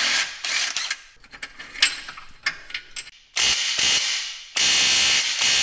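Cordless impact wrench hammering in bursts, loosening the long 18 mm bolts of a Mazda Miata's power plant frame: a short burst at the start, a couple of seconds of light clicking, then two short bursts and a longer, loud one near the end. Really hard on the ears.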